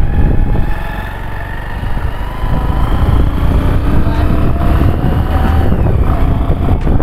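Motorcycle engine running steadily as the bike is ridden. A low rumble grows louder about two and a half seconds in.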